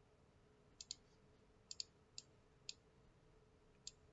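Computer mouse clicking: about seven short, sharp clicks spaced irregularly, two of them coming in quick pairs.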